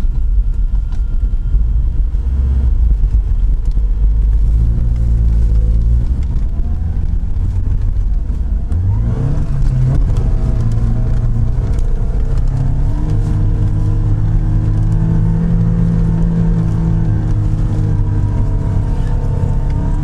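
Lada Niva 4x4 engine heard from inside the cabin: a low steady rumble, then about nine seconds in it revs up and holds at high revs as the car pushes forward through deep snow, falling away near the end.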